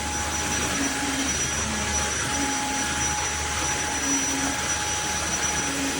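Tineco iFLOOR 3 cordless wet-dry floor cleaner running: a steady motor whine and suction hiss as it mops a hard floor, with short low tones recurring about once a second.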